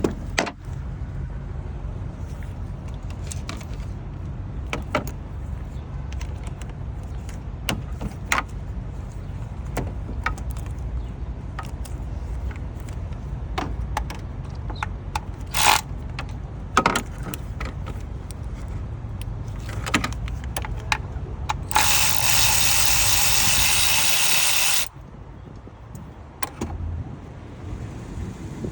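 Scattered metallic clicks and clinks of a 10 mm socket wrench and tools working on the engine's solenoid bolts, over a steady low rumble. Near the end a loud, even hiss lasts about three seconds, and the rumble stops with it.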